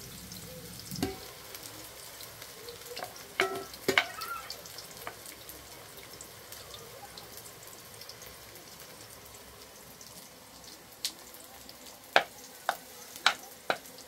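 Peeled eggplant halves frying in hot oil in a pan: a steady sizzle, with a few sharp clicks and knocks scattered through, the loudest about four seconds in and several near the end.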